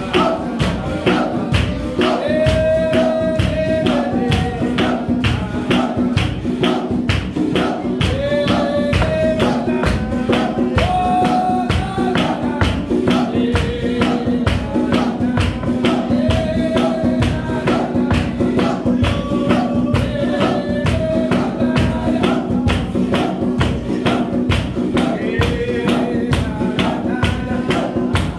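Lively dance music with a fast, steady percussion beat and singing voices.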